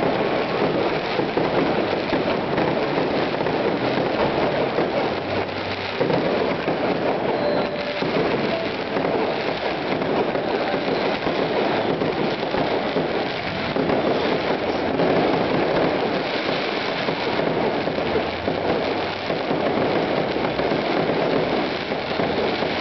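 Fireworks going off in a dense, continuous barrage of crackling bursts, with no break between them.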